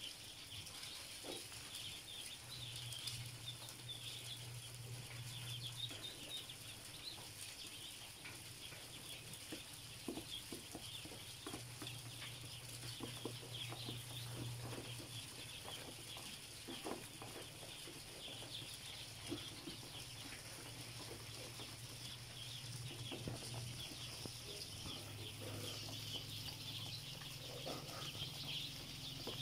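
A brood of dozens of ducklings peeping constantly, many short high calls overlapping into a chorus. A faint low hum comes and goes underneath.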